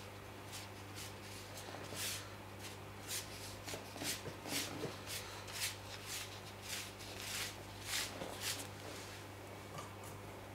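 An ink brush swept across paper in quick strokes while painting grass blades: a run of short swishes, about two a second, over a steady low hum.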